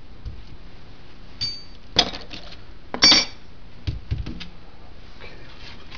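Steel brake pedal box parts clanking and clinking with a short ring on the wooden workbench about two and three seconds in, then two dull rubber-mallet knocks just under a second apart about four seconds in, as the assembly is given a little persuasion to come off the pedal arm.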